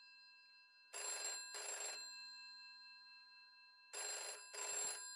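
An old rotary-dial telephone's bell ringing in two double rings, about three seconds apart, over a faint steady high tone.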